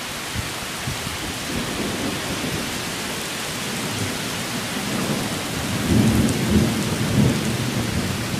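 Heavy rain falling steadily in a thunderstorm, with a low rumble of thunder building about five seconds in.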